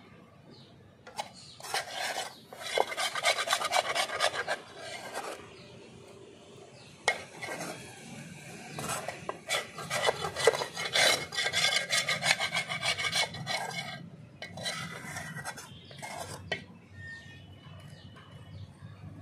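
Metal spatula scraping the inside of a black iron wok in quick repeated rasping strokes, as the dry-fried fish is scraped out. The scraping comes in two long spells with a short pause between, then shorter scrapes near the end.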